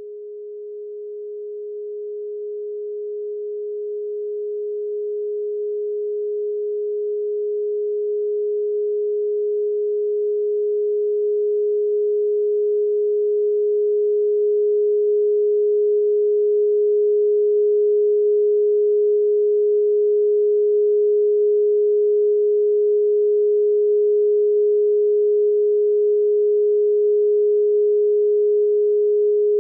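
A single steady pure sine tone, a solfeggio meditation tone, swelling in gradually over the first fifteen seconds and then holding at one pitch.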